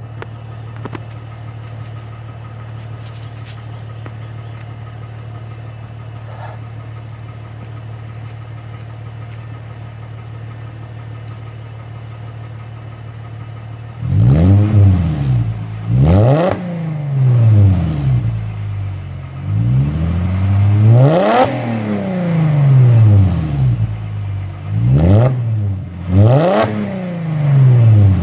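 2006 Mercedes-Benz E350 4Matic's 3.5-litre V6 through a straight-piped exhaust, mufflers removed and catalytic converters kept, idling steadily. About halfway through it is revved sharply several times, each rev climbing quickly and dropping straight back to idle.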